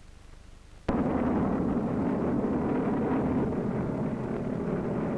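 Aircraft engines droning on an old film soundtrack, a loud steady roar that cuts in suddenly about a second in after a faint hiss and hum.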